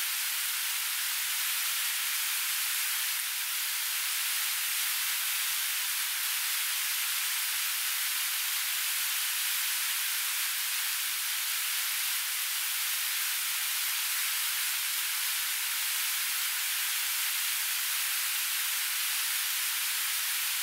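Waterfall rushing: a steady, even hiss of falling water, all in the high end with no low rumble.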